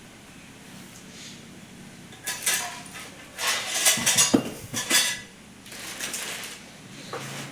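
Hard objects clattering and clinking in several bursts, starting about two seconds in and loudest around the four-second mark, with a last short clink near the end.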